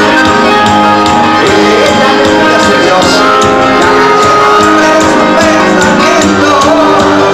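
Live cuarteto band playing loud: held keyboard chords over a steady percussion beat.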